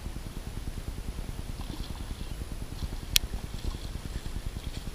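Wind buffeting an outdoor microphone as a steady low rumble, with one sharp click about three seconds in and a few faint high chirps.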